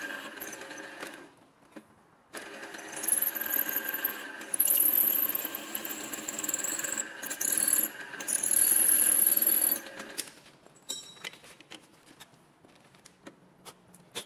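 Metal lathe cutting steel: a steady machine hum with high-pitched squeals from the cutting tool in several bursts. It stops about ten seconds in, followed by a few light clicks.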